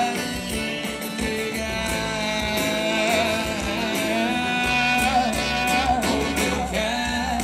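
Live sertanejo music from a country duo's band: a male singer holds one long sung note over acoustic guitar and band, the note wavering near the end.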